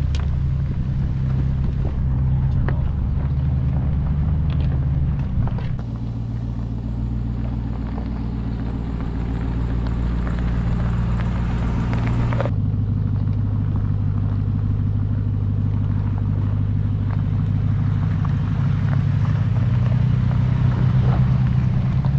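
Pickup truck engine running at low speed while crawling a rocky shelf trail, a steady low drone. Its pitch shifts about six seconds in and again abruptly about twelve seconds in.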